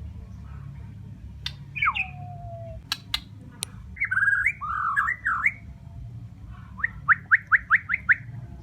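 White-rumped shama (murai batu, Bornean type) singing: a long downward-sliding whistle, a few sharp clicks, a warbled phrase, then a quick run of about eight short rising notes near the end. A steady low hum underlies it.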